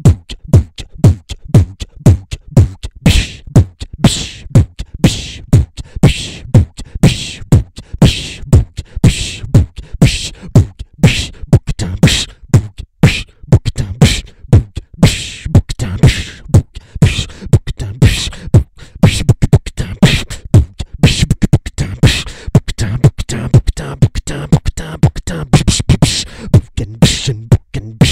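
Human beatbox: a steady vocal-percussion groove built from the French words "bouc", "biche" and "bouquetin" used as drum sounds. Low kick-drum-like thumps run in a fast, even rhythm, and sharp hissing snare-like strokes come in about three seconds in, roughly once a second.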